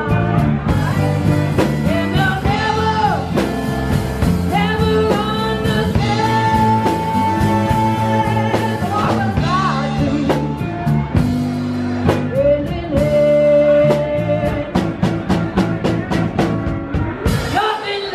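A live band playing: a woman singing lead over electric guitar, bass guitar and a drum kit, holding two long notes in the middle of the passage.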